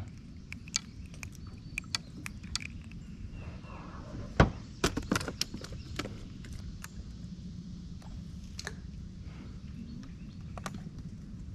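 Scattered clicks and knocks of fishing tackle being handled in a boat, with one loud thunk about four seconds in and a quick flurry of knocks just after, over a steady low rumble.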